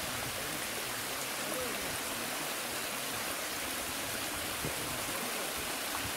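Steady rushing of running water from a stream or river flowing.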